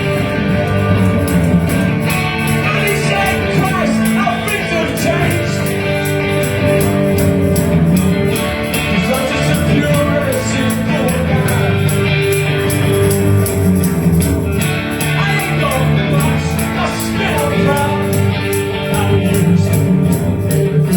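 Rock band playing live: electric guitars, bass and drums with a steady beat, in an instrumental stretch between sung choruses.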